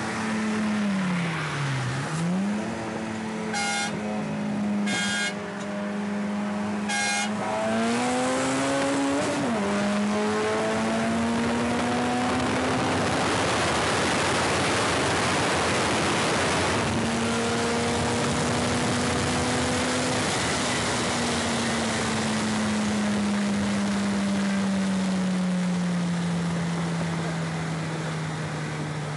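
Turbocharged Honda Integra's engine heard from inside the car at motorway speed. Its pitch dips and recovers early on, rises under acceleration, and is buried for a few seconds by loud rushing wind and road noise. After that it falls slowly as the car eases off. Three short, sharp sounds come a few seconds in.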